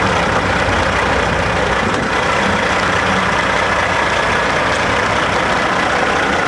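Diesel engine of a semi truck idling steadily at close range.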